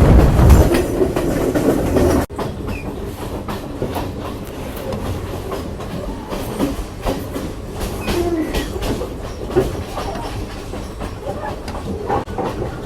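Passenger train running on rails, its wheels clacking over the rail joints in irregular clicks over a steady rumble. A louder rushing noise for the first two seconds cuts off suddenly.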